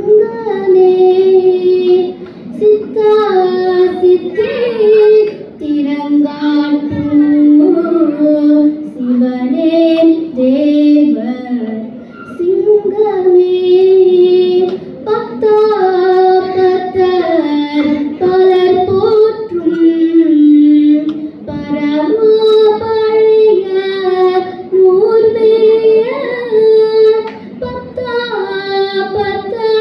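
A girl singing a Tamil devotional hymn solo into a microphone, holding notes and gliding between pitches, with brief pauses for breath.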